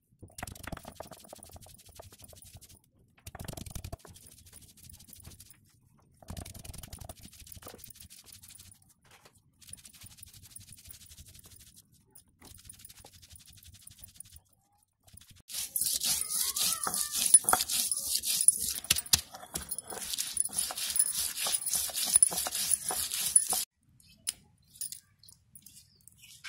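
Stone roller being rolled and rubbed over a flat grinding stone, crushing garlic and seeds into a paste: gritty scraping and cracking in short bouts with brief pauses, then a louder, faster stretch of grinding for several seconds in the second half.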